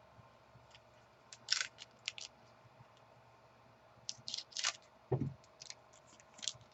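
Football trading cards being flipped through and handled: short crisp crackles and snaps in two clusters, with one short low sound about five seconds in.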